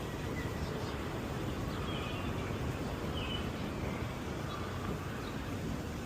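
Steady city street ambience: a constant wash of traffic and background noise, with a few short high chirps, like small birds, about two and three seconds in.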